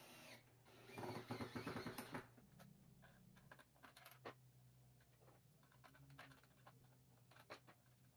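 Faint scraping rattle lasting about a second, starting about a second in, followed by scattered light clicks and taps.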